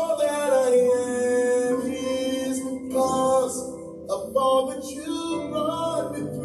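Gospel song in a church service: singing over instrumental accompaniment.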